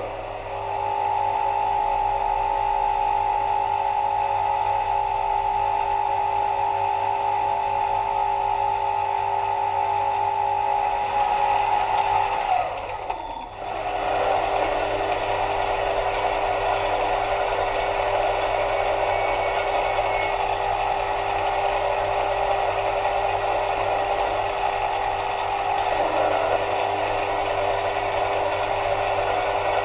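Mini lathe running with a steady motor whine while the tool turns an aluminium bar. About 13 seconds in the whine glides down and briefly dips, then the sound turns rougher and noisier as the cut goes on.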